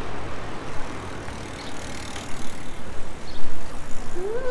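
Steady outdoor street noise, like passing traffic, with a short cry from a person that rises and falls in pitch near the end.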